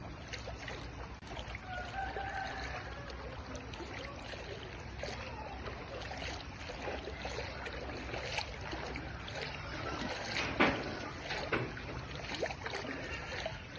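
Steady rush of floodwater, with scattered small knocks and clicks and one sharper knock about ten and a half seconds in.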